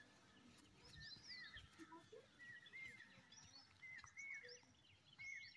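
Birds chirping faintly in the background: short arched calls, often in quick pairs, repeated throughout.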